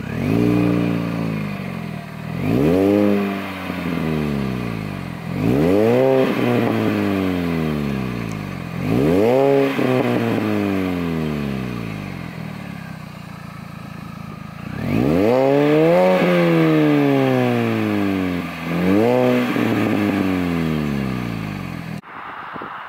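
2004 Mini Cooper S (R53) supercharged 1.6-litre four-cylinder revved at a standstill through its stainless steel exhaust: six throttle blips, each rising quickly in pitch and falling back towards idle, the fifth held longer at high revs. The engine sound cuts off suddenly near the end, leaving faint outdoor background.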